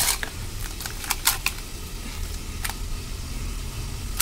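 Raw chicken pieces squelching as they are mixed and squeezed by hand with a wet spice marinade in a steel bowl: a few short, sharp squishes. A steady low hum runs underneath.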